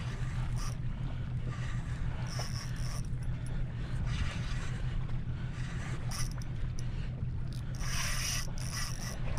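Spinning reel working under load while a hooked fish is fought: short bursts of drag and reel noise come several times. A steady low rumble lies underneath.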